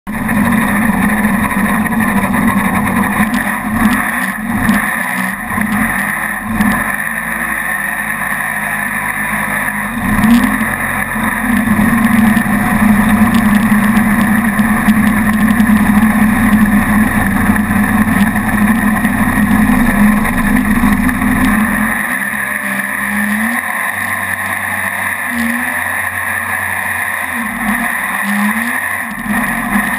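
Mini jet boat's engine running under way with a steady drone and the rush of water. About two-thirds of the way in, the deep rumble drops out and the engine note rises briefly again and again.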